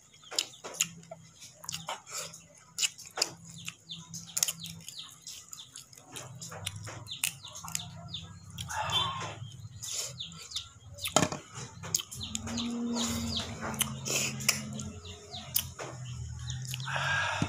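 Cooked crab shell being cracked and picked apart by hand and mouth: a run of sharp clicks and snaps, the loudest a little past the middle. A bird calls briefly about halfway through and again near the end, over a low steady hum.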